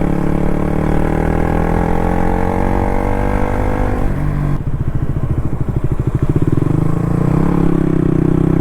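KTM RC 200's single-cylinder engine under way: the exhaust note rises steadily in pitch as the bike accelerates for about four seconds, then drops sharply as the throttle comes off or a gear changes, and runs lower and choppier before settling to a steady pull.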